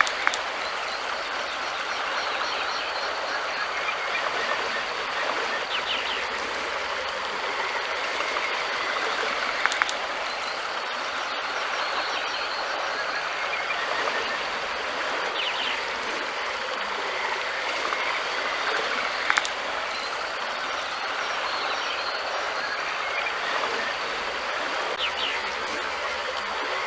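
River water flowing, a steady rushing hiss, with a few brief clicks, twice standing out more loudly.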